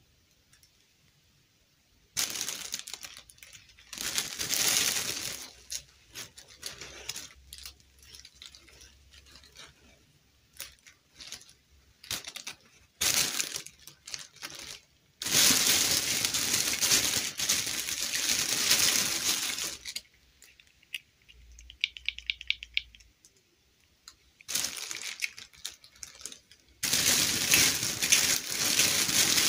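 Clear plastic bag crinkling as it is handled, in irregular bursts, with longer unbroken stretches about halfway through and near the end. A quick run of small ticks comes about two thirds of the way in.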